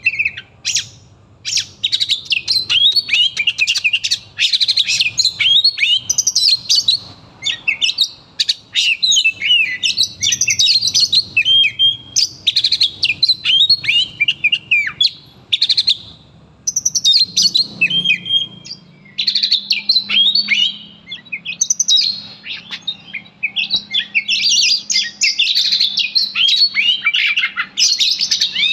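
Oriental magpie-robin (kacer) singing loudly and almost without pause, in rapid strings of varied whistles, chirps and sweeping notes: the agitated, aggressive 'fighting' song that kacer keepers prize.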